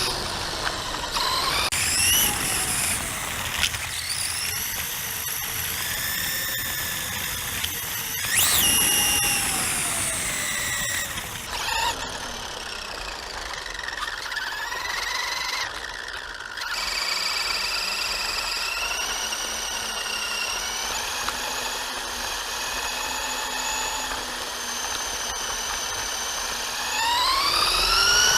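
Electric motor and geared drivetrain of a Traxxas Slash 2WD RC truck whining, picked up by the camera riding on the truck; the pitch rises and falls again and again with the throttle, and sweeps up sharply near the end as it speeds up.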